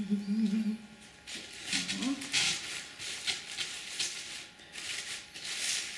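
Dry crepe-paper and leaf flowers rustling and crackling in repeated short bursts as they are handled and pushed into the arrangement. There is a brief hummed vocal sound at the start and another short one about two seconds in.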